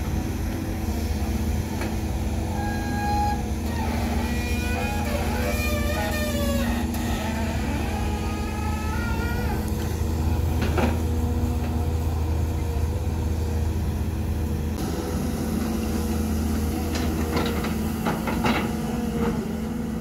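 Heavy diesel engines of a Shantui DH17 bulldozer and a crawler excavator running steadily, with a few short knocks near the end.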